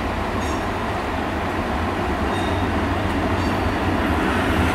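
Diesel freight locomotive hauling a train of covered steel coil wagons, its engine running with a steady low rumble that grows slightly louder as it approaches.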